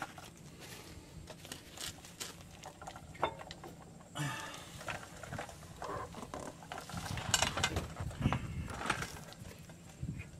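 Irregular small metallic clicks, clinks and rattles of hands working on a disc brake caliper, seating its slide pins and lining it up for its bolts; the knocks come thicker near the end.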